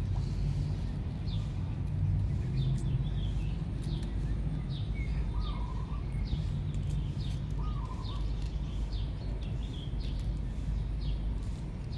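Small bird chirping over and over, short high notes that fall in pitch, about one a second, over a steady low rumble of outdoor background noise.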